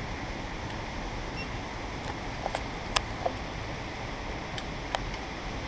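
Steady low rushing room noise with a few light clicks and taps from gear being handled at a shooting bench, the sharpest click about three seconds in.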